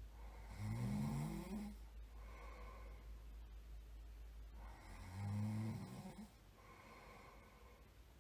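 A person snoring in their sleep: two rattling snores about four seconds apart, with quieter breaths between them.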